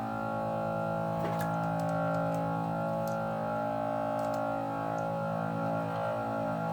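Background music of sustained, slowly shifting chords, with a few faint clicks about one, three and four seconds in.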